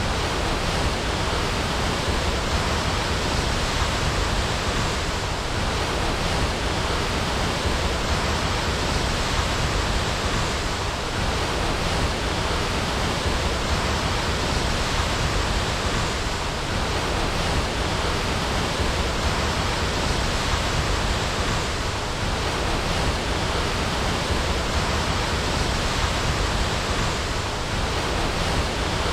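Waterfall: falling water making a steady, unbroken rushing noise, even in level throughout.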